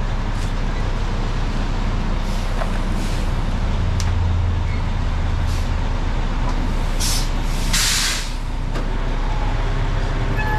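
Concrete mixer truck's diesel engine running steadily. Its low drone grows stronger for a couple of seconds about four seconds in, and a burst of air hiss comes near eight seconds in.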